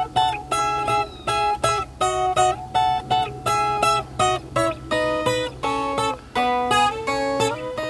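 Viola caipira strummed in a rhythmic instrumental introduction to a sertanejo-style song. The chord strokes come about two to three a second.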